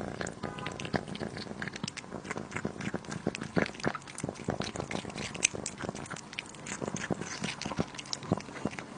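A cat eating a treat close by: irregular wet clicks and smacks of its mouth, several a second.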